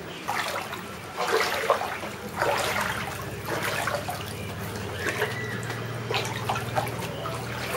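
Floodwater sloshing and splashing in irregular bursts about once a second, as someone wades through water covering a room floor, over a low steady hum.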